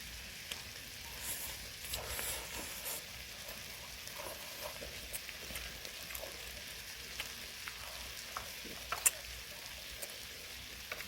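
Pork belly and kimchi sizzling steadily on a grill pan, with scattered light clicks.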